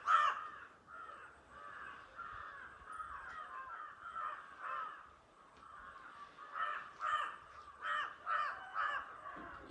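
Crows cawing over and over, short harsh caws about half a second apart. The loudest come at the very start and in a quick run of about six caws in the second half.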